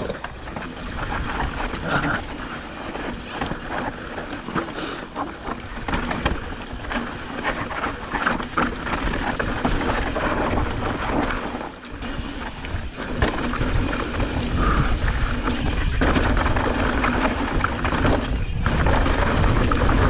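Mountain bike descending a dry, loose dirt trail: tyres crunching and scrubbing over the dirt with the bike rattling over bumps, and wind rushing over the camera microphone, heavier in the second half.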